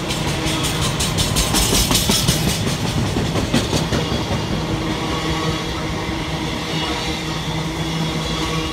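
Intermodal container flat wagons of a freight train rolling past, most of them empty. Their steel wheels clatter in a quick run of repeated clicks from about one to four seconds in, over a steady rumble and hum.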